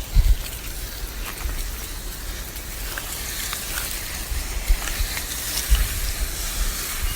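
Garden hose spraying water onto plants: a steady hiss of spray with a few small ticks of water hitting. A low bump comes just after the start and again about six seconds in.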